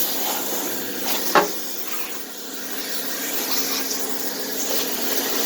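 Pressure washer running, its jet spraying water onto a riding mower's engine: a steady hiss over a steady hum, with one short sharp knock about a second and a half in.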